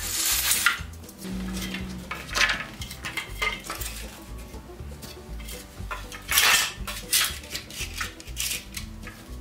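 Loose iron straps clanking, and old wooden boards knocking and scraping as they are handled and laid on a concrete floor. The knocks come irregularly, with the loudest clatter about six and a half seconds in.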